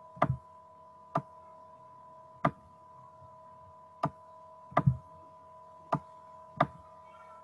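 Computer mouse clicks: about eight short, sharp clicks at irregular intervals, a couple of them in quick pairs, over a steady high hum.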